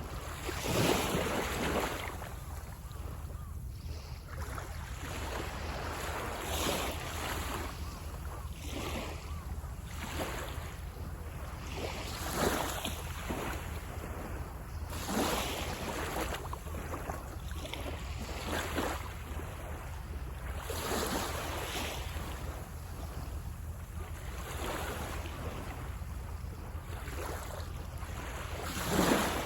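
Small sea waves breaking on the shore in a steady series, a surge of wash every two to three seconds, with the strongest about a second in and near the end. A low wind rumble on the microphone runs underneath.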